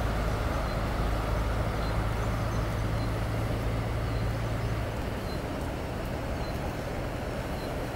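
Traffic on a snow-covered, slushy road: a truck's engine hum that fades about five seconds in, over steady road noise.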